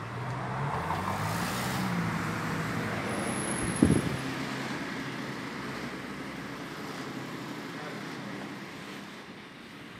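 Steady road-traffic noise, strongest in the first few seconds and slowly fading, with a single sharp thump about four seconds in.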